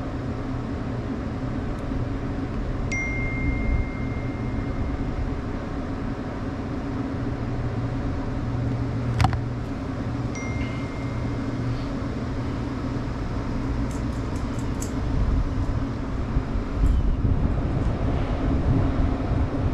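Steady low machinery hum, with two short high-pitched beeps, about 3 and 10 seconds in, and a sharp click between them.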